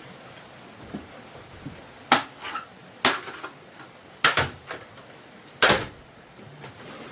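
Four loud, sharp knocks about a second or so apart, some doubled, with a few lighter taps between.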